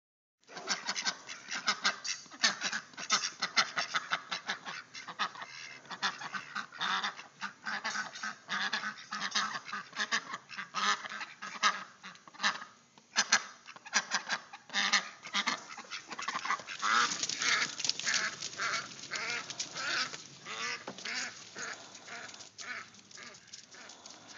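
Ducks calling: many short, harsh calls in quick succession.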